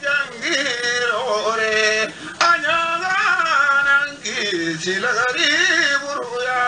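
A solo voice chanting in long, ornamented phrases, each held note bending up and down, with short breaks between phrases.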